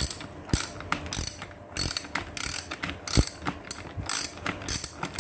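Ratchet wrench with a 14 mm socket loosening a bicycle saddle clamp bolt. It ratchets in short bursts of clicks, about two bursts a second, as the handle is swung back and forth.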